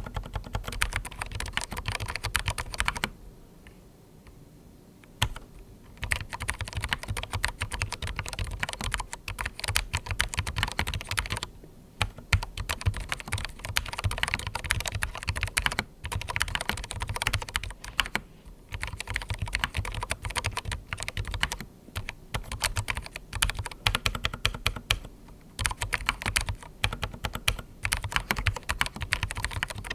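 Fast continuous typing on a darkFlash DFS99 low-profile mechanical keyboard with linear red switches and internal foam, giving muted, rapid key clicks. The typing pauses briefly a few times, the longest for about two seconds a few seconds in.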